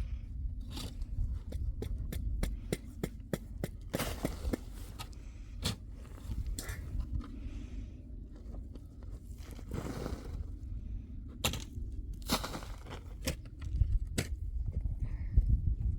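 Scattered knocks, taps and scrapes, densest in the first few seconds, with a few longer scrapes later, over a constant low rumble.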